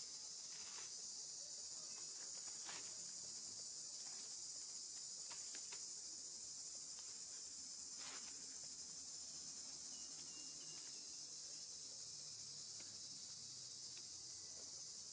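Steady high-pitched chorus of insects, an even unbroken shrill hiss, with a few faint clicks.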